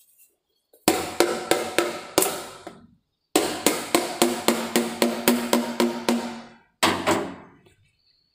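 Lid of a plastic paint pail being hammered shut, quick blows about four a second, each with a short hollow ring from the pail, in two runs with a brief pause and a last blow near the end. The pail is being sealed before it goes on the paint shaker.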